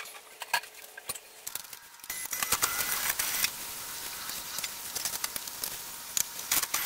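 A few clicks as the opener's power cord is plugged in, then from about two seconds in a Genie Smart 1 HPc belt-drive garage door opener runs steadily, moving the door along its track on a test run.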